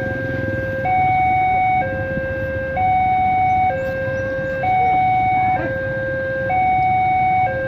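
Railway level-crossing warning alarm sounding a steady two-tone hi-lo signal, the pitch switching between a lower and a higher note about once a second, the warning given while a train approaches or passes the crossing.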